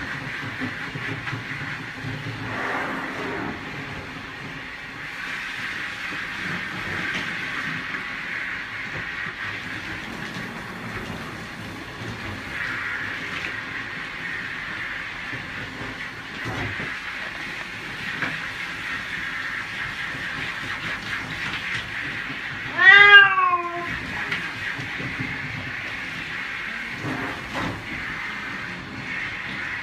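Shower water running steadily while a cat is bathed. About three quarters of the way through the cat gives one loud meow.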